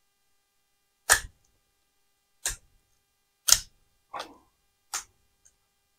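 Cured resin 3D-print supports being snapped off a printed part by hand: a series of short, sharp cracks about a second apart, one followed by a brief rustle.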